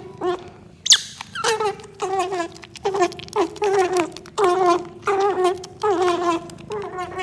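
Baby otter pup squeaking while it suckles, a string of short wavering calls about two a second. One sharp, high squeak about a second in is the loudest moment.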